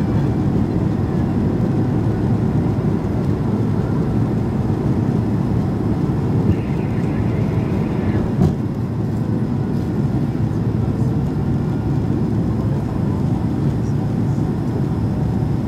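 Steady low rumble of a Boeing 767's engines and rushing air inside the passenger cabin on the landing approach, with a single short click about eight seconds in.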